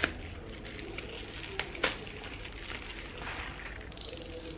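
Plastic wrap and bubble wrap rustling and crinkling as a new guillotine cutting bar is cut free with a utility knife. A few sharp clicks of the knife and bar are heard around the middle.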